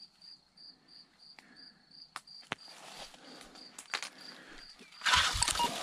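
An insect chirps steadily, about three pulses a second, with a few sharp handling clicks. About five seconds in, a loud rustle of brush and gear comes as a metal detector is picked up. A run of short electronic beeps from the detector follows, which its user takes for interference.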